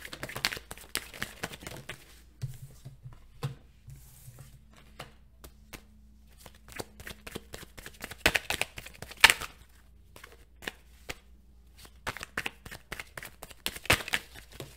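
A tarot deck being shuffled by hand: quick runs of crisp card clicks and slaps, loudest around eight to nine seconds in and again at about fourteen seconds.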